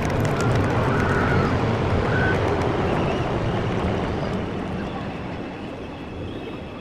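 Jet aircraft passing overhead, a steady rumble that slowly fades away as it recedes, with crowd voices underneath.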